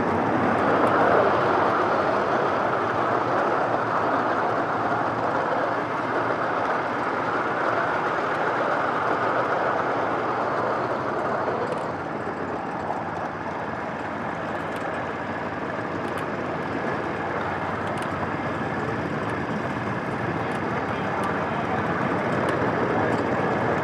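Steady rumbling of a 7.5-inch gauge ride-on train's steel wheels rolling along the rails at speed, with a few faint ticks; it eases a little about halfway through.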